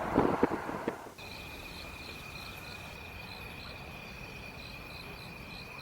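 Insects singing in the night: a steady, unbroken high trill with a faster pulsing chirp above it. It starts after a second of scattered knocks and rustle that cuts off abruptly.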